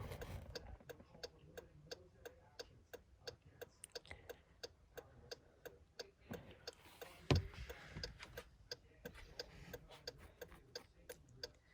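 Jeep's hazard-light flasher clicking steadily and quietly, with a single louder thump about seven seconds in.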